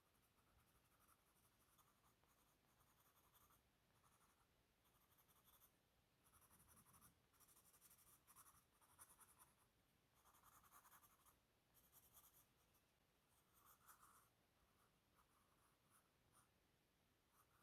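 Faint scratching of a drawing or writing tool on paper, in irregular strokes that come thickest through the middle.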